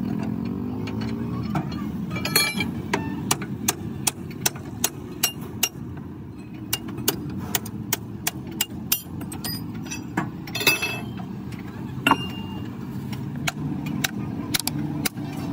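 Hand tools working a truck's steel leaf spring pack: irregular sharp metal-on-metal hammer and pry-bar strikes and clinks, roughly one or two a second, a few ringing briefly, over a steady low rumble of engines.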